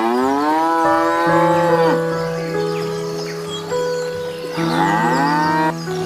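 Two long animal calls, each rising in pitch and then held, the first about two seconds long and the second shorter near the end, over soft background music.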